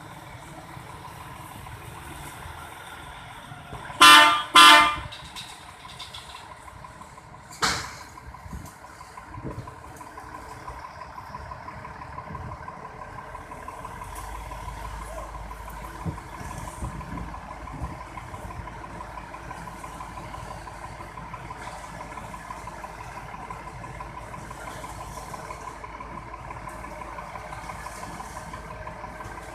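Two short vehicle horn blasts in quick succession about four seconds in, then a shorter sharp sound a few seconds later, over a steady engine hum.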